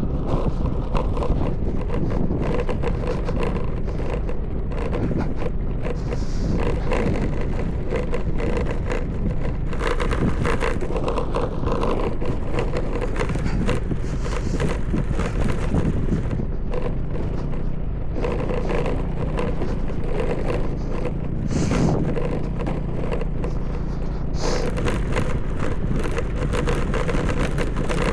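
Yamaha Aerox 155 scooter ridden over a rough, rocky off-road track: the engine runs under a constant clatter and scrape of the tyres and body over loose stones.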